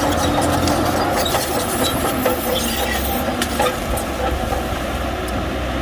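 Shantui crawler bulldozer's diesel engine running steadily under load, with its steel tracks giving off scattered high squeaks and clicks.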